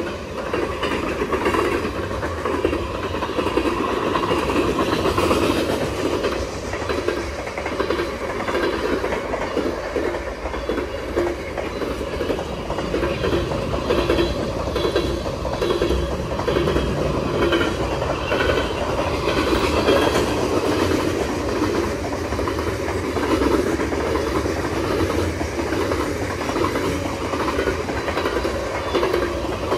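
Freight train cars rolling steadily past, with continuous wheel-on-rail noise and the clack of wheels over the track.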